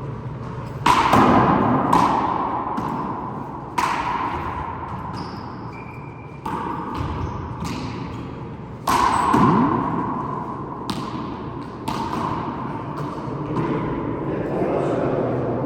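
Rubber handball rally: about seven sharp smacks as the ball is struck by hand and hits the court walls and floor, each ringing on in an echoing court.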